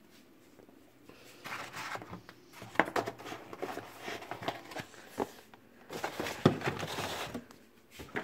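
Kitchen handling noises: a string of sharp clicks and knocks with rustling as a cardboard egg box is handled on the counter, then a fridge being opened near the end.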